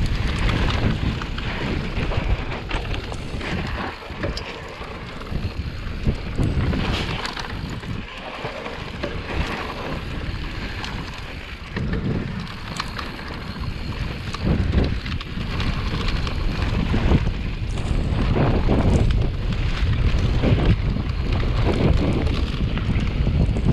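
Wind buffeting the microphone over the tyres of a Mondraker Level R electric mountain bike rolling fast down a dirt trail. Short knocks and rattles from the bike over bumps come through the steady rumble, which swells and eases with speed.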